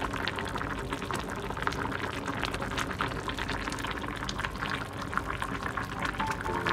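Vegetable soup boiling in a glass pot: a steady, dense bubbling with many small pops. Music comes in near the end.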